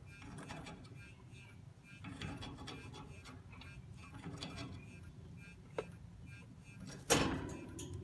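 A few faint clicks and taps over a low hum, then one sharp knock that rings briefly about seven seconds in.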